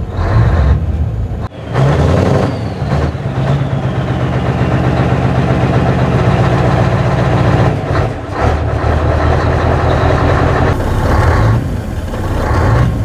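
Scania 143M's 450 hp V8 diesel engine being revved several times from idle, each rev falling back before the next.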